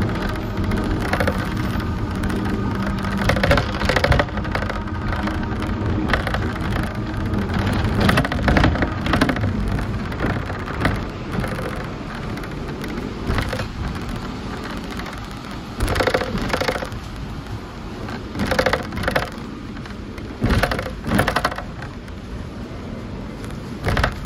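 Hong Kong double-decker tram running along its tracks, heard from on board: a steady rumble with a few short, louder clatters in the second half.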